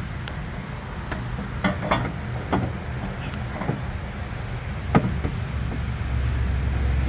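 Scattered metal knocks and clinks of tools and parts during hands-on work fitting exhaust headers to a truck, over a steady low hum; the sharpest knock comes about five seconds in.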